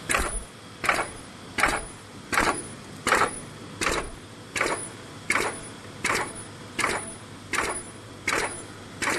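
Laminated pouch making machine running, with a sharp mechanical stroke repeating evenly about every three-quarters of a second, one per machine cycle, over a low steady hum.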